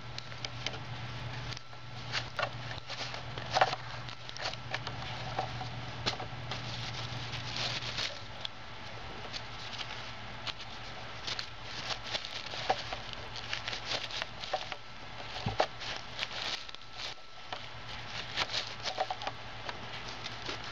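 Crumpled paper and plastic wrappers crinkling and crackling as they are crushed by hand in a Lego-brick compactor, with irregular small clicks of the plastic bricks and mechanism.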